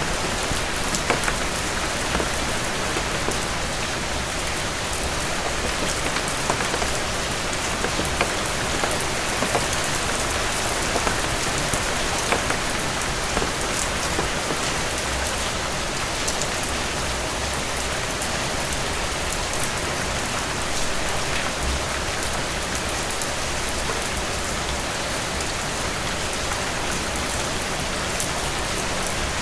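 Steady rain falling on a surface, a dense even hiss with many small drop patters.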